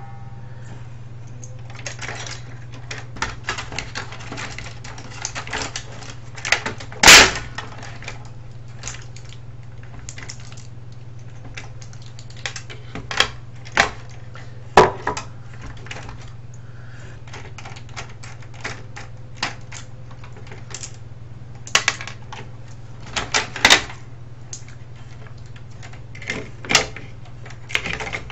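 Scattered clicking and clattering of tools and small plastic and metal parts as a cassette recorder radio is taken apart by hand, with a few louder knocks, the loudest about seven seconds in. A steady low hum runs underneath.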